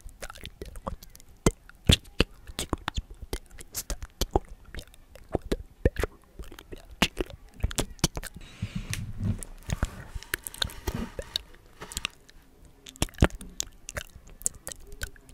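Close-miked inaudible whispering, full of wet mouth clicks and lip smacks one after another, with a softer breathy stretch a little past the middle.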